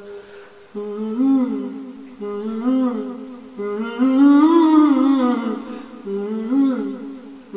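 A man humming a wordless melodic passage in four phrases, each rising and falling in pitch, the longest and loudest in the middle.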